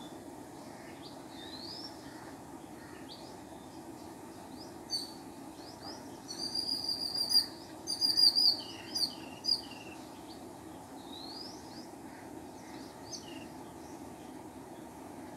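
House sparrows chirping: scattered faint short chirps, with a loud run of rapid repeated chirps about six to eight and a half seconds in and a couple more single loud notes just after, over a steady low background hum.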